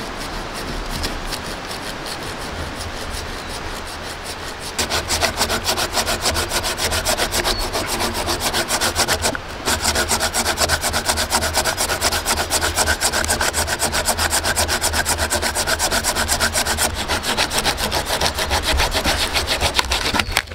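A folding hand saw cutting through a fallen log with fast back-and-forth strokes. The strokes are light at first, then loud and rapid from about five seconds in, with one brief pause near the middle. They stop near the end, when the piece is cut through.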